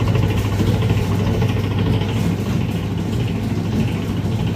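Bakery dough mixer running: its electric motor hums steadily as the hook turns through flour, water and oil in the steel bowl, the start of kneading a large batch of bread dough.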